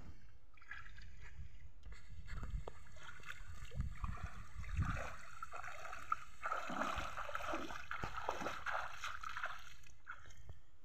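Legs wading through knee-deep river water: sloshing and splashing with each stride, heaviest in the middle of the stretch and easing off as the wader steps out onto the bank.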